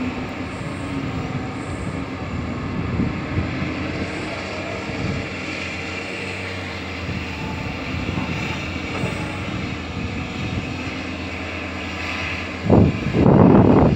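Doosan hydraulic excavator's diesel engine running steadily as the machine swings and works its boom and bucket. Near the end there is a loud low rumble lasting about a second.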